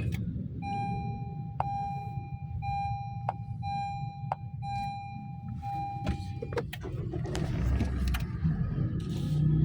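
A row of electronic beeps: about seven steady tones, each under a second long, with sharp clicks between them, over a low rumble. The beeping stops about two-thirds of the way in.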